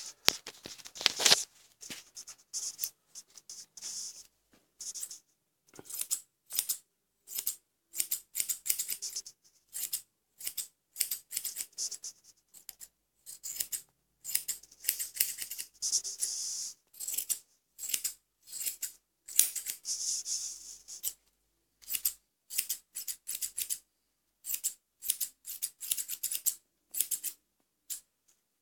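Straight grooming shears snipping through a schnauzer's leg fur, shaping the leg hair in quick runs of short, crisp cuts with brief pauses between them.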